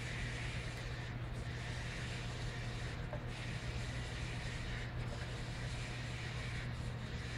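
Steady low hum of running laboratory equipment under an even hiss that swells and fades every couple of seconds.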